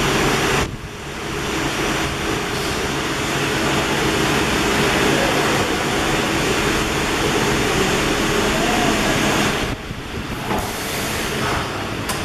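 A 25 kW high-frequency PVC tarpaulin welding machine running with a steady mechanical hum and hiss. The level drops briefly about a second in and again near the end.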